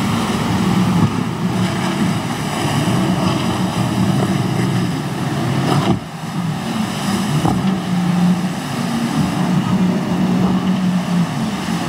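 Motorboat engines running steadily over a haze of rushing water and wind noise, with a sudden brief drop about halfway through.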